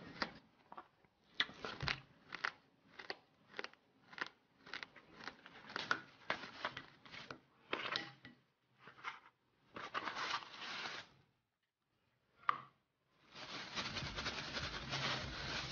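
Short crinkling and tearing noises, about two a second, from packaging being opened and handled. Small hard pieces are tipped from a cardboard box onto a plate.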